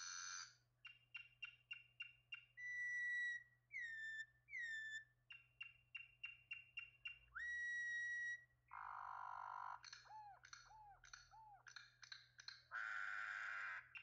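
Campo troupial (corrupião) singing a varied song. Clear whistled notes, some held level and some sliding down, alternate with quick runs of dry clicks, short arched notes, and two harsh rasping calls, one in the middle and one near the end.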